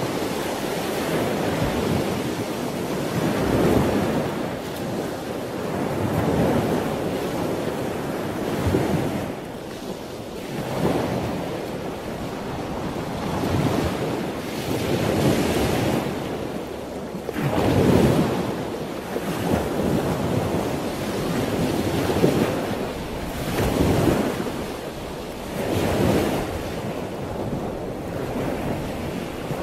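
Ocean surf: waves breaking and washing in, the rushing swelling and fading every two to three seconds.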